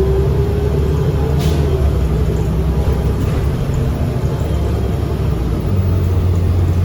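Fairfax Connector transit bus under way, heard from inside the cabin: steady engine and road rumble, with a shift in the engine's low note about two-thirds of the way through.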